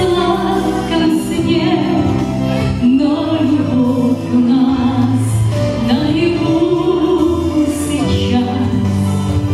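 A woman singing a slow song into a handheld microphone over instrumental accompaniment, holding long notes with vibrato.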